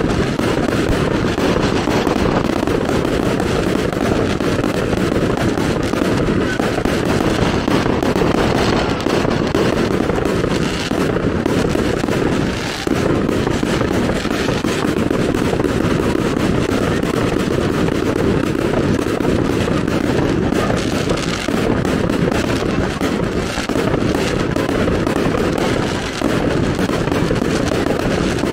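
Fireworks: a dense, unbroken crackle of many rapid small bangs, loud and steady, with a few brief dips.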